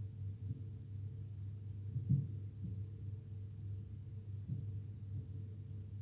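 A steady low hum with a few soft low thumps now and then, the strongest about two seconds in.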